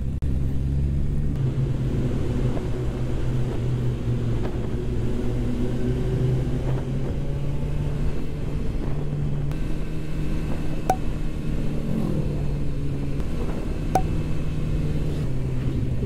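Suzuki GSX-S1000F motorcycle's inline-four engine running steadily at cruising speed, with wind and road noise on the rider's microphone.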